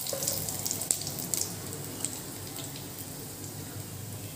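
Cumin seeds, cloves and asafoetida sizzling in hot oil in a kadhai (a tadka), a steady hiss with scattered small crackling pops that slowly dies down as the seeds cook.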